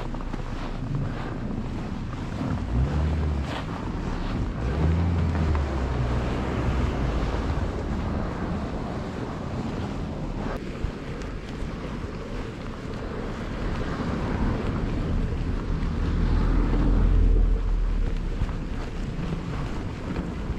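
Wind buffeting the microphone: a steady rushing noise with heavy low rumbles, loudest about three-quarters of the way through.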